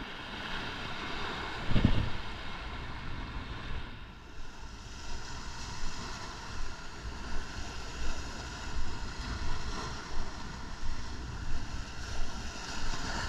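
Surf washing against the jetty's rock boulders, with wind buffeting the microphone in a low, gusting rumble. A single low thump comes about two seconds in.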